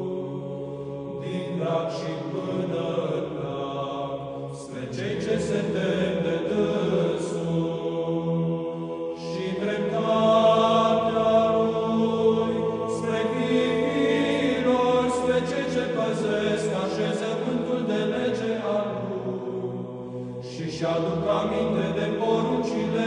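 Slow Orthodox church chant: voices singing long, sustained notes in phrases over a steady held low drone.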